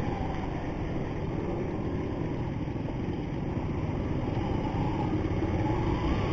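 Motorcycle engine running under way at low speed, with a dense low rumble of road and wind noise; the engine note picks up again near the end.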